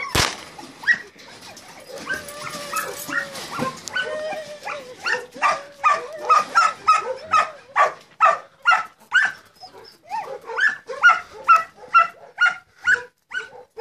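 A single sharp shot from a blank-firing pistol right at the start, fired to get the puppies used to gunfire. Then puppies yip and bark over and over, in a quick run of about two to three barks a second from about five seconds in.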